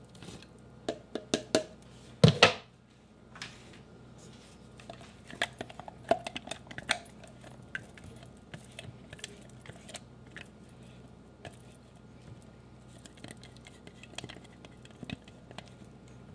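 Wooden spatula scraping and tapping apple purée out of a blender cup into a stainless-steel mixing bowl: scattered light knocks and scrapes, with a louder clatter about two seconds in.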